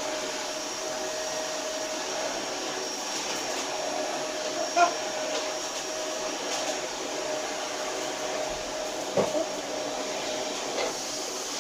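Steady whirring of a running electric motor, like a fan or blower, with a faint high whine over it. A few brief, sharp sounds break in about five seconds and nine seconds in.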